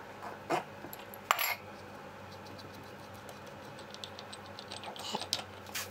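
Metal-on-metal clinks as an adjustable spanner works the steel locknut at the back of a dividing head's spindle, with a few sharper clicks in the first second and a half. This is followed by a run of light ticks as the loosened nut is spun off its thread by hand.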